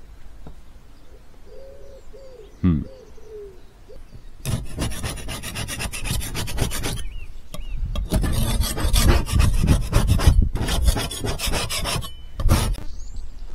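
Steel scraper blade rasping over a painted roof panel, scraping off crusted lichen and moss to bare the surface. The quick strokes start about four seconds in and come in several runs with short pauses.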